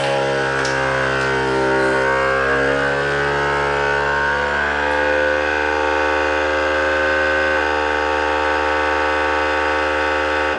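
Bonsenkitchen automatic vacuum sealer's pump running a vac-seal cycle, drawing the air out of a bag: a steady, loud hum whose pitch wavers slightly in the first few seconds, cutting off suddenly at the end.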